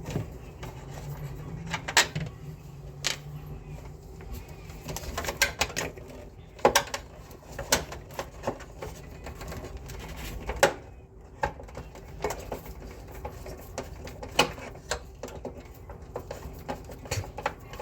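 Irregular clicks and knocks of tools and plastic and metal parts being handled while the split air conditioner's indoor unit is taken apart.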